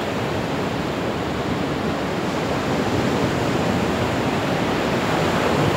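Steady rush of ocean surf breaking and shallow water washing up the sand, growing slightly louder toward the end.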